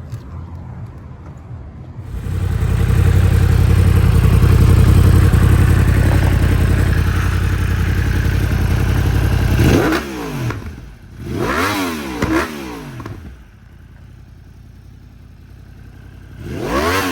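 2022 Yamaha YZF-R1's crossplane inline-four through a full Akrapovič titanium exhaust: idling, then held loud and steady at high revs for about eight seconds. It then gets several quick throttle blips, each rising sharply and falling back, drops back to idle, and gets one more blip near the end.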